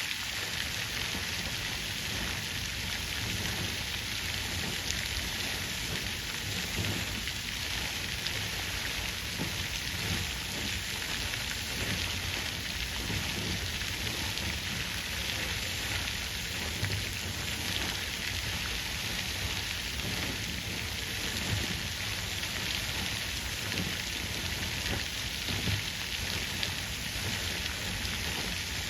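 Water fountain splashing steadily: an even, continuous rush of falling water.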